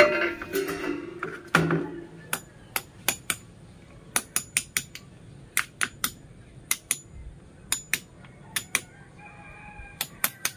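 A rooster crows for about the first two seconds. After that comes a series of about twenty sharp hand-hammer strikes chipping into a ceramic floor tile, in irregular groups of two to four.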